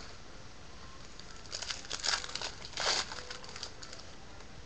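Foil wrapper of a Panini Contenders trading-card pack crinkling and tearing as it is opened by hand, in a short run of crackles about one and a half to three seconds in.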